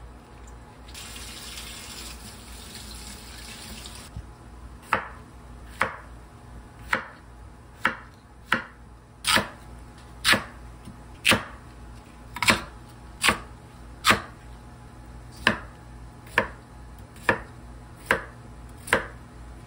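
A chef's knife slicing through lotus root and carrot and striking a wooden cutting board, about one stroke a second, some sixteen strokes in all. Before the cutting starts there are a few seconds of steady hiss.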